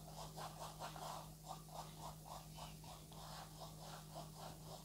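Oil-paint brush working paint onto a canvas: faint, scratchy strokes at about three a second as colour is blocked in.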